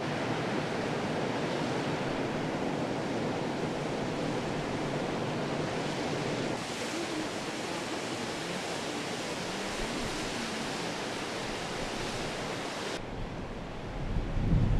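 Steady rushing noise of water from the flooded river, changing abruptly twice as the shots cut, with a louder low rumble near the end.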